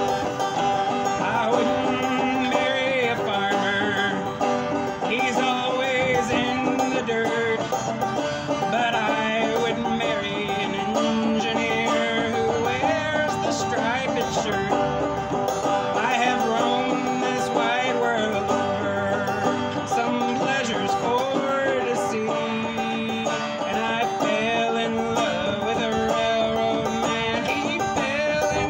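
Banjo played in a steady rhythm as folk-song accompaniment, with a man's voice singing over it.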